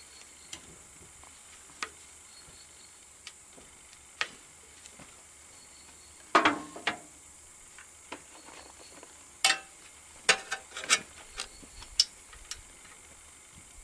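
Scattered metal clicks, knocks and clinks as a small engine's dipstick tube and other parts are handled and pulled out by gloved hands. The clinks are loudest about six seconds in and again around ten to eleven seconds in, over a faint steady hiss.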